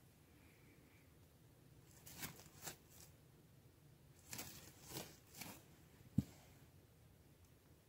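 Faint, short scratchy rustles of a hand brushing and pressing dry, gritty soil, about five strokes, followed by a single dull thump about six seconds in.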